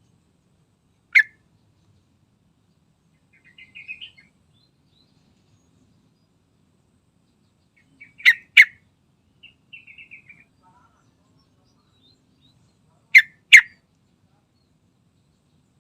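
Yellow-vented bulbul calling: one loud, sharp note about a second in, then two pairs of loud sharp notes later on, with soft, quick chattering phrases in between.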